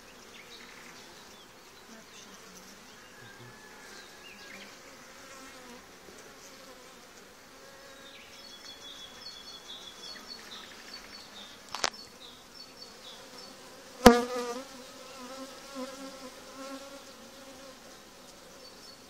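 Honeybees buzzing in a steady hum around an open hive frame. A little past halfway there is a sharp click, and about two seconds later a louder knock.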